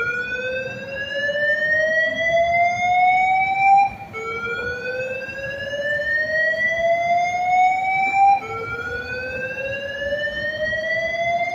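Building fire and evacuation alarm sounding a whoop tone: a rising sweep, about four seconds long, repeated three times, each dropping back abruptly and starting again. It signals an emergency evacuation of the building.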